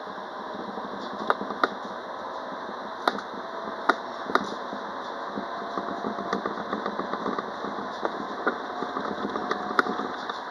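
Citadis Dualis tram-train running along the line: steady rolling and running noise with a handful of sharp clicks, and a faint whine that comes and goes midway.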